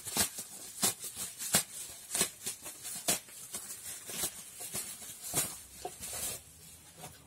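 Carded toy figures in plastic blister packaging being handled, giving irregular light clicks and crinkles.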